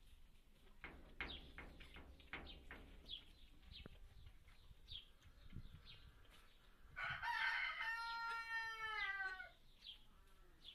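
A rooster crows once, a single call of about two and a half seconds starting about seven seconds in and falling away at the end, over faint short high chirps.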